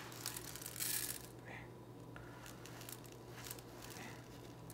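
Cat litter granules rustling and trickling through hands in rubber-coated work gloves and pattering back into a glass bowl, with a louder pour about a second in and a few small ticks of grains.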